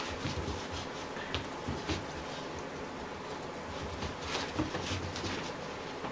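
Small dog playing rough with a kitten, making short, irregular little vocal sounds, mixed with scuffling and light knocks from the tussle on the rug.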